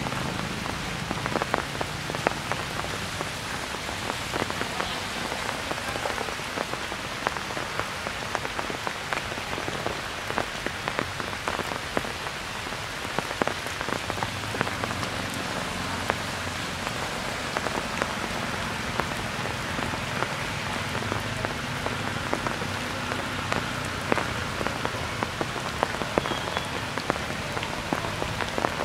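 Steady rain falling, with many individual drops tapping sharply through it.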